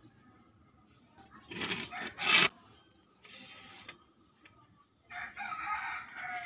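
A rooster crows once, about five seconds in: one long call that drops in pitch at the end. Before it, a few knocks and scrapes, the loudest near the two-second mark, as the metal window-regulator rail is handled.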